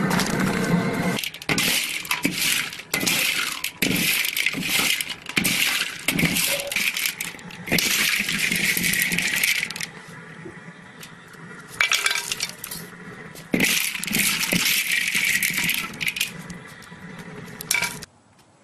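Expanded-clay pellets clattering and scraping against a metal pan as they are tipped in and stirred through melted sulfur, in a string of rattling bursts with short pauses between. It stops abruptly near the end.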